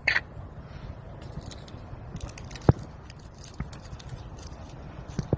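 A parrot gives one short, high chirp. Scattered light clicks and scratchy ticks follow, like a beak nibbling and claws gripping, with one sharper click near the middle.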